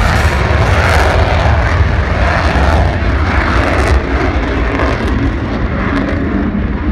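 Jet aircraft engine noise: a steady, loud rumble with a hiss above it, easing slightly in the second half.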